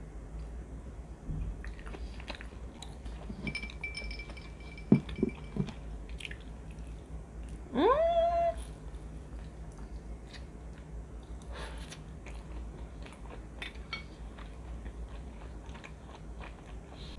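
Close-miked chewing and biting of grilled chicken skewer meat, with small wet mouth clicks throughout. Three sharp clicks come about five seconds in. About eight seconds in there is a short pitched sound that rises and then holds for half a second, the loudest moment.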